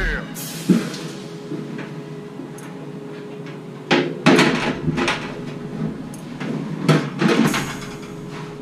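A handful of sharp knocks and clunks of hard parts being handled, two near the middle and two more near the end, over a steady low hum.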